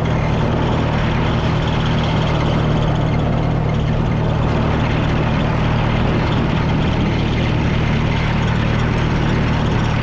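Oliver farm tractor's rebuilt engine running steadily as the tractor drives along, with a constant low drone.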